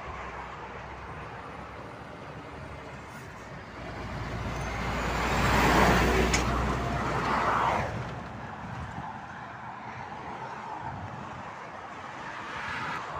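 Semi-trailer truck with a curtainsider trailer driving past close by, its engine and tyre noise swelling to a peak about halfway through and then fading. Another vehicle passes near the end, over steady traffic noise.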